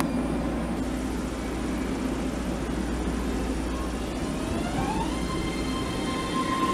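BART Legacy Fleet train hums steadily while standing, then as it starts to pull away, about two thirds of the way in, its propulsion whine rises in pitch and settles into a steady high tone.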